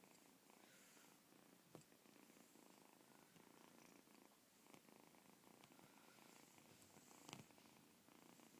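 Persian kitten purring faintly and steadily, with two soft clicks, one about two seconds in and one near the end.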